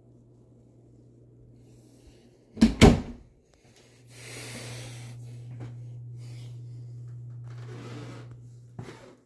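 A closet door being shut: two sharp knocks close together as it closes and latches. After that, a steady low hum with a faint airy hiss lasts about five seconds.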